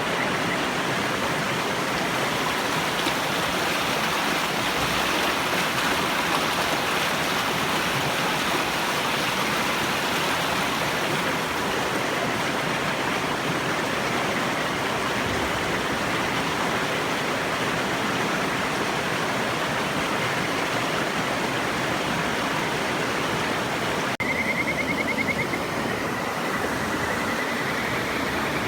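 A river rushing steadily. About 24 s in, after a cut, kajika frogs join with high trilled calls, the last one rising in pitch.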